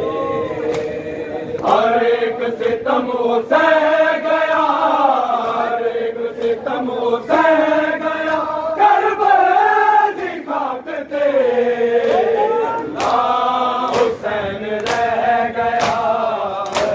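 A group of men chanting a nauha, a Shia lament for Imam Hussain, in unison with long drawn-out sung lines. Sharp slaps come through at intervals, more often in the second half, from men beating their chests (matam).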